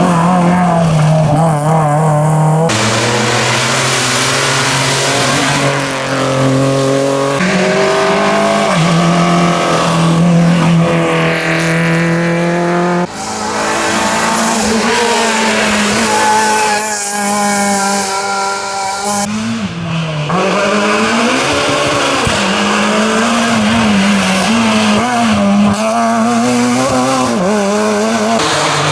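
Rally cars driven hard on a special stage: engines revving high and dropping back with each gear change, with tyres squealing. The sound changes abruptly several times as one car gives way to the next.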